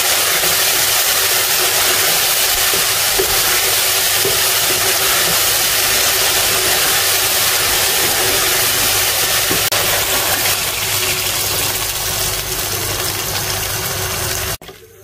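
Potatoes and onion masala frying in a pot, a loud steady sizzle with a low hum underneath, and a few faint spatula knocks. It cuts off abruptly near the end.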